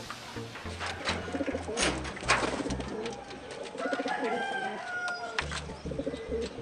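Racing pigeons cooing in their loft, with a few sharp clicks about one and two seconds in.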